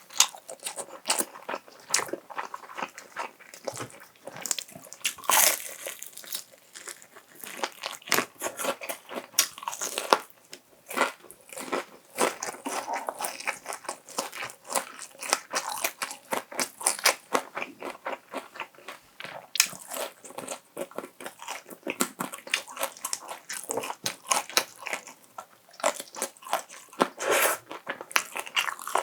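Close-miked eating of honey-glazed fried chicken: crisp crunching bites with irregular, rapid crackles of the coating, and wet chewing in between.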